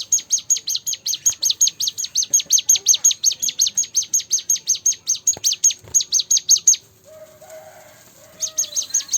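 Ciblek gunung (cigun) song used as a masteran training track: a fast, even run of sharp high chirps, about seven a second. It breaks off about seven seconds in and starts again near the end.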